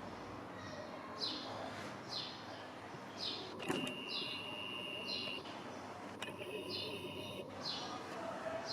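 A bird repeating a short, high, falling call about every three quarters of a second over steady outdoor background noise. About three and a half seconds in there is a click, followed by a steady high whistle lasting under two seconds.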